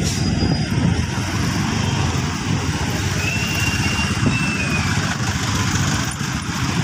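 Steady engine and road noise from riding in slow street traffic, a dense low rumble with motorcycles and cars close by. A faint thin high whistle runs for about a second and a half, a few seconds in.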